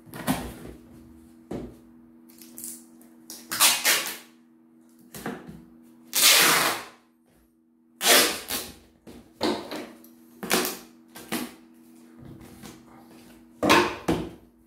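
Clear packing tape being pulled off the roll in rasping strips and pressed onto cardboard boxes, with the cardboard flaps and boxes knocked and handled between strips. The longest strip, about a second long, comes near the middle.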